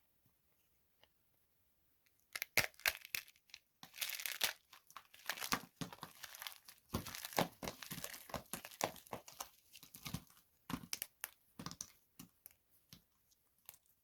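Dry soap crackling and crumbling as it is crushed, a dense run of sharp crunches that starts about two seconds in and thins out near the end.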